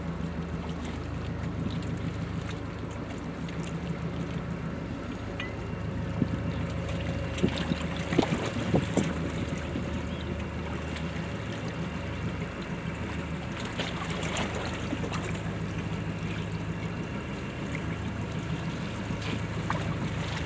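Steady low drone of a passing offshore supply vessel's engines, with wind buffeting the microphone a few times.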